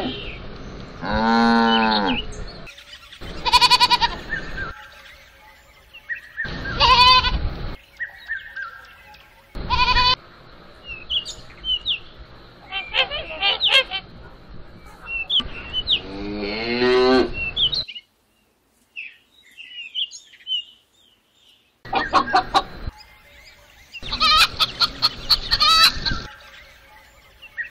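Farm animals calling in short clips one after another: cattle mooing, other higher-pitched livestock calls, and chickens clucking. A few seconds of near silence fall about two-thirds of the way through.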